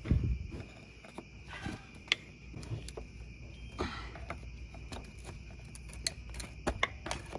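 Scattered small clicks, knocks and brief scrapes of plastic clips and hose connectors being worked loose by hand on a BMW N54's intercooler piping, with a faint steady high-pitched tone in the background.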